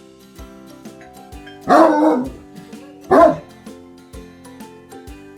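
A dog barks twice, a drawn-out bark and then a short one, each falling in pitch. Background music with a steady drum beat plays under it.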